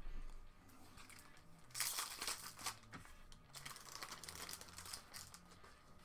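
A Magic: The Gathering booster pack's foil wrapper being torn open and crinkled in the hands, in two bouts of crackling, about two seconds in and again from about three and a half seconds.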